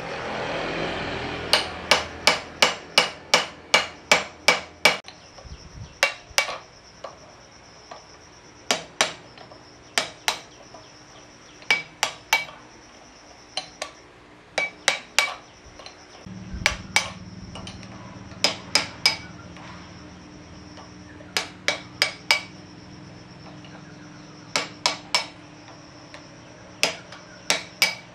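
Hammer blows on metal, each strike ringing briefly. A quick run of about ten blows, roughly three a second, comes first, then blows in twos and threes with pauses of a second or two between.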